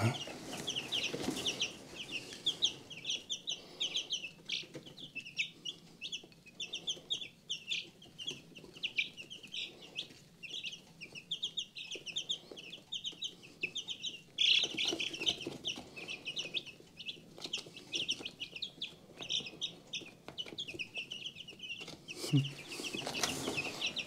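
A brood of chicken chicks peeping without a break, many short high peeps overlapping.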